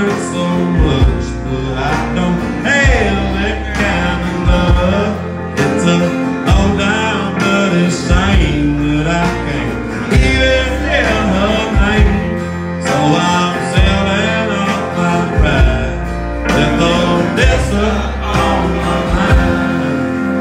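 Live country music: a man singing over strummed acoustic guitar, with pedal steel guitar and a bass line that moves every second or two.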